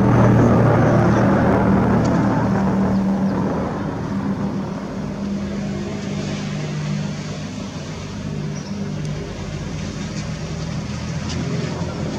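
Tupolev Tu-95MS bomber's four turboprop engines with contra-rotating propellers passing low overhead, a deep steady drone of a few low tones over a rushing noise. It is loudest for the first few seconds, then eases a little.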